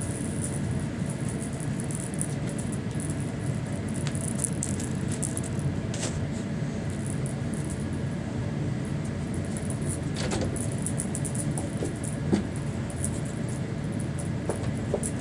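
A cat toy jingling and rattling in short, irregular bursts as a ferret plays with and bites it, with a few sharper clicks, over a steady low background hum.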